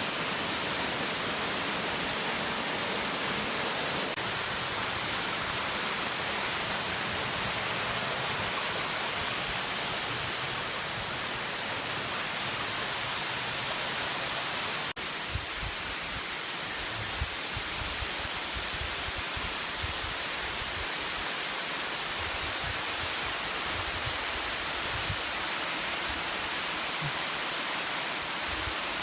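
Rushing water of a waterfall, a steady, even hiss. After a short break about halfway through, irregular low thumps sit under it.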